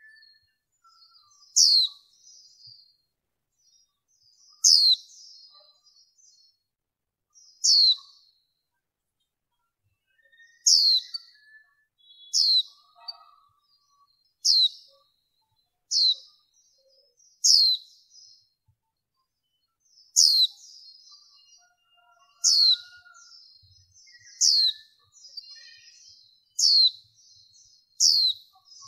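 Female white-eye calling: a loud, sharp, downward-sweeping call repeated about thirteen times, one every one and a half to three seconds, with soft high twitters in between. This is the kind of call used to rouse male white-eyes to sing.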